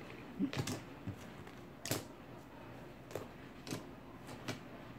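A handful of light clicks and taps, about five spread over a few seconds.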